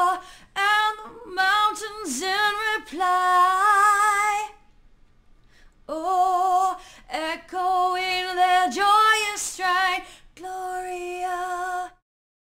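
A woman singing alone without accompaniment: two phrases of long held notes with a wide vibrato, separated by a short pause about five seconds in. It cuts off suddenly near the end.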